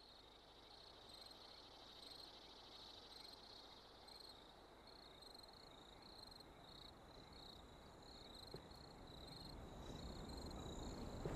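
Faint night ambience of crickets chirping in short, high, evenly repeated pulses.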